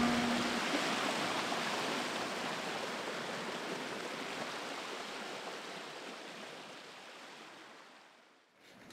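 The last notes of music end about half a second in, leaving a steady rushing noise that fades out slowly and evenly, dropping almost to silence shortly before the end.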